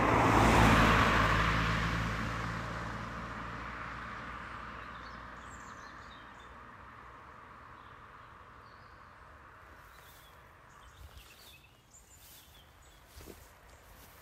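A car passes close by, loudest just after the start and fading away over several seconds. Birds chirp faintly afterwards.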